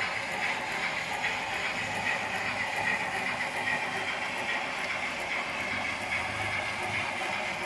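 H0-scale model freight train of hopper wagons rolling past on the track: a steady rolling sound of the wheels with light clicking at the rail joints.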